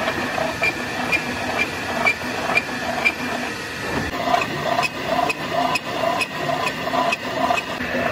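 Large metal lathe turning a big steel shaft, the cutting tool scraping through the metal with a steady grinding noise that pulses about twice a second.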